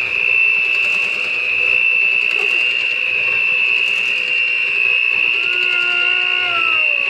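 Electric hand mixer running steadily, its beaters turning in chocolate cake batter, with a steady high whine from the motor.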